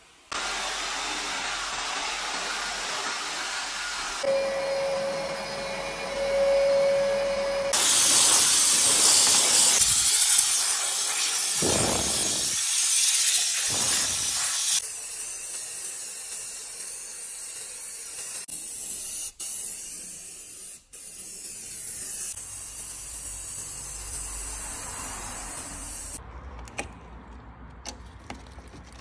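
Hissing spray and steam on a car's engine bay: a pump sprayer misting cleaner, then a steam cleaner jetting steam over the plastic engine cover, loudest in the middle, with the sound changing abruptly at several cuts. A few light clicks near the end.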